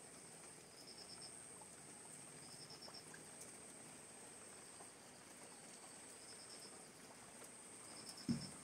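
Faint insect chorus: a steady high whine with short, quick chirp trills repeating about every two seconds, over a faint patter of rain. A single dull thump near the end.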